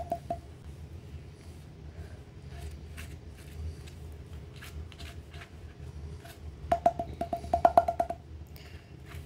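A spoon scraping and tapping against a plate while spreading mayonnaise on a flatbread: scattered light clicks, then a quick run of ringing taps about seven seconds in, over a steady low hum.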